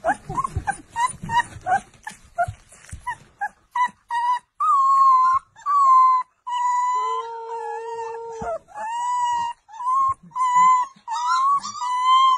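Husky puppy howling: a run of short whimpering yips, then, about four seconds in, long, slightly wavering howls held near one pitch with short breaks between them.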